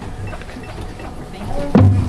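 A marching band opening its show: after quiet crowd murmur and a few light ticks, the band comes in loudly about three-quarters of the way through, with low sustained brass and sharp drum hits.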